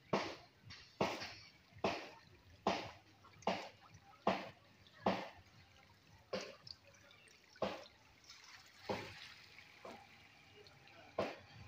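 Water splashing and dripping in short, regular splashes, about one a second, thinning out after the first five seconds: water falling back into the canal as a bamboo-framed lift net is hauled up.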